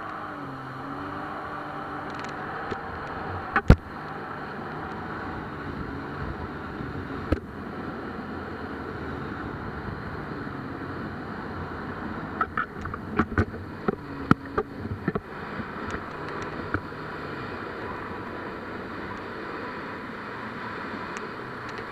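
Jet ski engine running under way, its pitch rising and falling, over a steady rush of wind and water at the mounted camera. Sharp knocks break in: the loudest about four seconds in, and a cluster of them in the middle.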